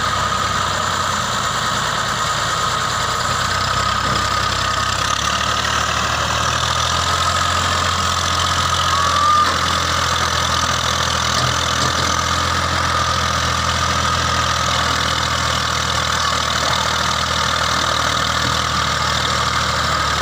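Massey Ferguson 240 tractor's three-cylinder diesel engine running steadily under load, hauling a fully loaded trolley. Its low note shifts slightly about five seconds in.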